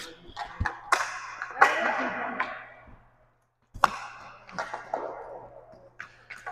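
Distant, echoing cracks and clacks of roller hockey sticks hitting the puck and each other. A faint steady low hum runs underneath, and the sound drops out briefly a little after three seconds in.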